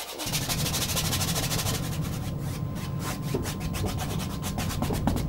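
Stiff bristle brush scrubbing thinned raw umber oil paint across a large stretched cotton canvas: a continuous scratchy rubbing made of quick repeated strokes, several a second.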